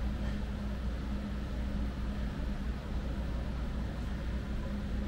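Steady low electrical hum from powered equipment in the house, a constant drone with a steady tone, a sign the building's electricity is still on.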